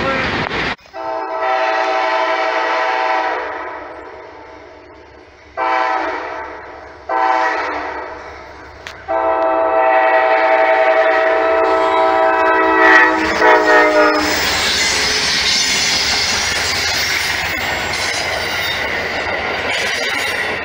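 Locomotive air horn sounding a multi-note chord in four blasts: one long, two short, then one long, each ringing off as it stops. The train then rolls past with a steady rush of wheel and rail noise and clacking over the rail joints.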